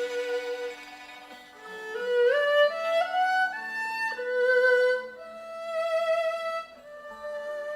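Erhu playing a slow melody over a backing accompaniment: a held note, then a stepwise climb to higher held notes with vibrato.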